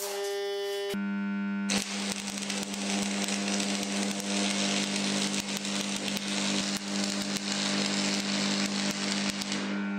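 Welding arc crackling and spitting steadily for about eight seconds, starting about two seconds in, over a sustained background music drone.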